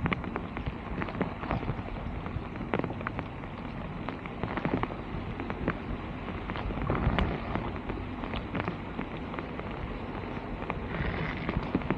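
Rapid, irregular clicks and knocks over a steady rushing noise, with a busier cluster of knocks about seven seconds in.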